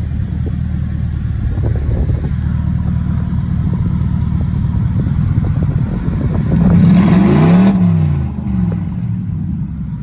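BMW 745's V8 engine running under way, heard from inside the cabin. About seven seconds in it revs up and then falls back, getting louder for a moment.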